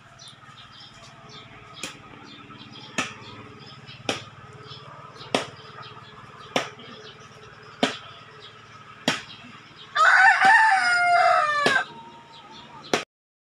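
A rooster crows once about ten seconds in, a loud call of nearly two seconds that falls in pitch at the end. Before and after it, sharp clicks come evenly about every second and a quarter over a low steady hum.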